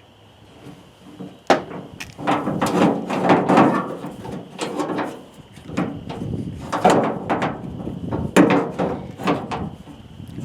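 Irregular knocks, clunks and rattles of metal parts being handled and worked on a pickup tailgate's latch mechanism, with a sharp knock about a second and a half in and more clunks later.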